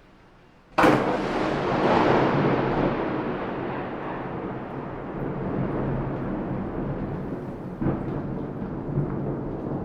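A thunderclap: a sudden sharp crack just before a second in, then a long rolling rumble that slowly fades. A second, smaller crack comes near the end.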